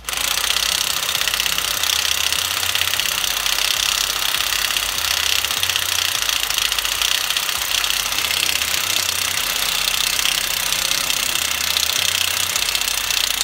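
Electric impact wrench running continuously, hammering rapidly as it drives the centre bolt of a puller that draws the crankshaft pulley off a Toyota 2JZ straight-six. It starts abruptly and cuts off just before the end.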